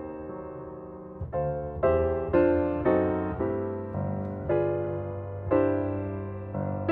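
Gentle piano music: notes and chords struck about twice a second, each ringing and fading, after a held chord over the first second.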